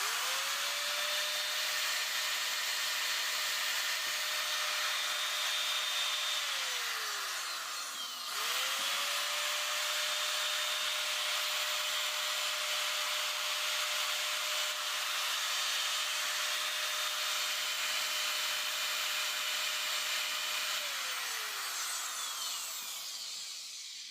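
Varyag angle grinder run twice: each time its motor spins up to a steady whine with a hiss, then is switched off and winds down, the pitch falling as it coasts to a stop.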